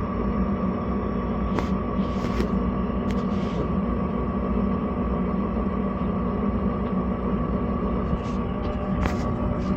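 A steady mechanical drone with a low hum and a thin steady whine, with a few light clicks and rustles over it.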